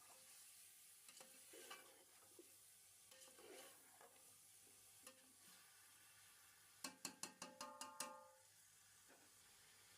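Faint sizzling under a few soft stirring strokes in a cooking pot. About seven seconds in comes a quick run of about seven ringing metal taps.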